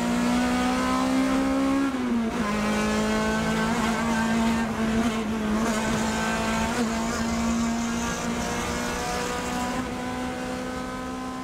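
A car engine at high revs, heard from inside the cabin. It holds a steady high note, dips in pitch about two seconds in, then creeps slowly back up.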